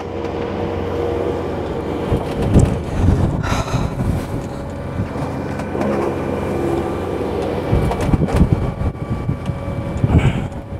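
A sailing yacht's inboard diesel engine runs with a steady hum, while strong wind gusts buffet the microphone in rumbling bursts about two seconds in and again near the end.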